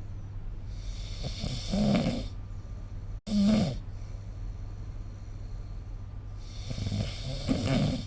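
A sleeping person snoring: two long snores about five seconds apart, each a low throaty sound with a breathy hiss. The first is followed by a brief cut and a short burst. A steady low hum sits underneath.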